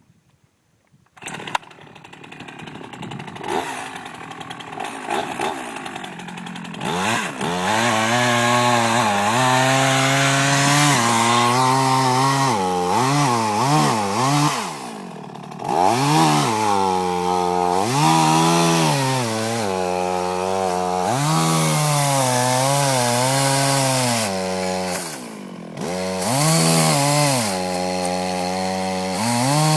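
Chainsaw running and cutting wood, its engine pitch rising and falling over and over as it revs and bogs in the cut, easing off briefly twice. A sharp knock comes about a second and a half in, before the saw gets loud.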